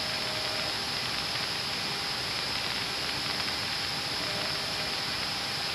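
Steady in-flight cockpit noise of a C-130 airtanker, heard through the crew intercom audio: an even hiss with a few faint steady hum tones underneath.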